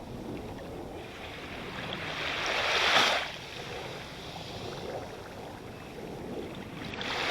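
Sea waves breaking close by on the shore: one wave swells and crashes about three seconds in, then washes back, and the next begins to build near the end.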